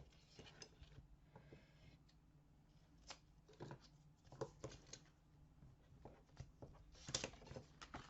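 Quiet scattered clicks and rustles of paper and double-sided tape being handled and cut, the loudest rustle about seven seconds in.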